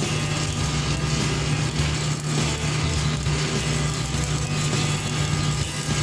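Shielded metal arc (stick) welding: the electrode's arc crackling and sizzling steadily. Underneath runs the steady drone of an engine.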